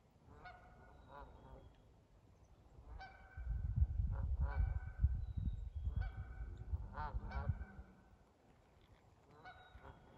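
Geese honking repeatedly across the pond, in short calls with brief pauses between them. A louder low rumble runs under the calls through the middle of the stretch.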